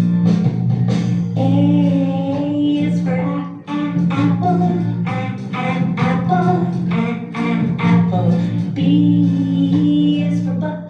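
A phonics song for the sounds of the English alphabet: a voice singing short syllables in a quick, regular rhythm over a steady instrumental accompaniment.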